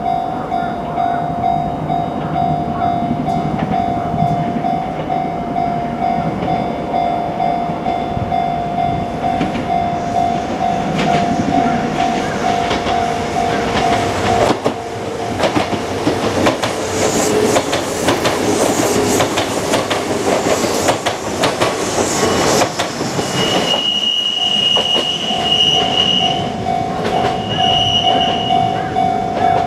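Japanese level-crossing warning bell ringing in a steady repeating pulse. About halfway through, a Kintetsu train runs over the crossing for roughly nine seconds of wheels clattering on the rail joints, and the bell is heard again once it has passed. A higher tone sounds on and off near the end.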